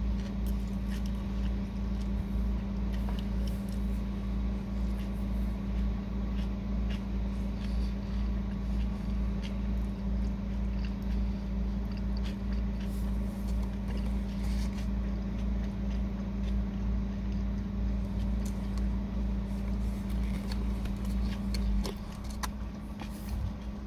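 A car engine running at a steady idle, a low even hum, with faint clicks and chewing from someone eating a wrap. The hum drops in level about 22 seconds in.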